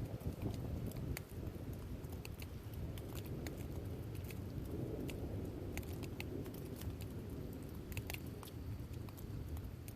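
Rain falling during a thunderstorm, with many scattered close drips ticking sharply over a low, steady rumble.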